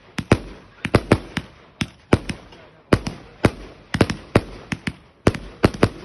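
Fireworks display: a rapid, irregular run of sharp bangs from shots bursting, about four a second and often in close pairs, each with a short echoing tail.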